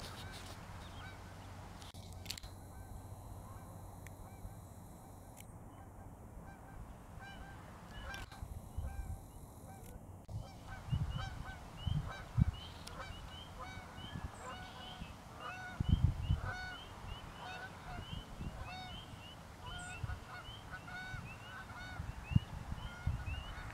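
A flock of geese honking, many calls overlapping, starting faintly a few seconds in and growing denser. A few low thumps stand out as the loudest moments.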